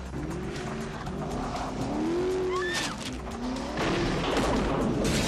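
Sports car engine revving up and down in several rising and falling sweeps, with a brief high tyre squeal near the middle. From about four seconds in, a louder rushing noise as the car skids and slides.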